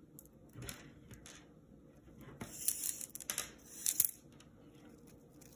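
Plastic pony beads clicking together and string scraping through them as the bead cuff is handled and threaded. A few scattered clicks, then a run of scratchy rustling and clicks from about two and a half to four seconds in.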